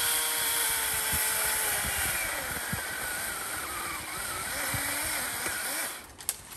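Ryobi ONE+ OCS1830 18 V brushless cordless chainsaw running, its motor whine sagging and wavering in pitch now and then under load. It cuts off near the end.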